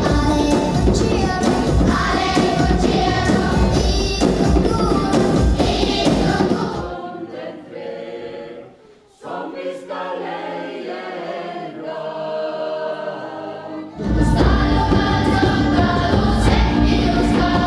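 Children's choir singing with loud instrumental accompaniment. About seven seconds in it gives way to a quieter group of adult singers without accompaniment, and about fourteen seconds in the choir and accompaniment return at full level.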